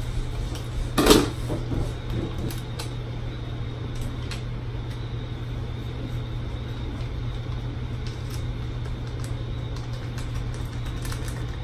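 Steady low electrical or mechanical hum. About a second in there is a short, sharp crackle as a small seasoning packet is torn open, followed by a few faint ticks and rustles as the garlic herb blend is shaken into a bowl.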